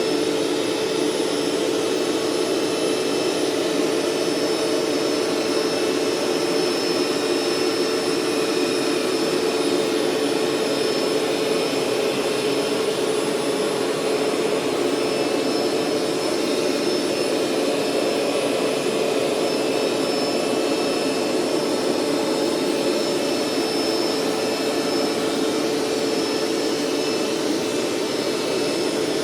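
Hoover SteamVac SpinScrub 50 carpet cleaner running steadily, its motor giving a constant pitched hum over the rush of suction, during a warm-water rinse pass over carpet.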